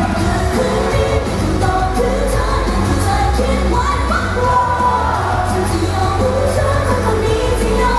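Loud amplified pop song with a woman singing the lead vocal into a handheld microphone over a backing track with steady bass and drums.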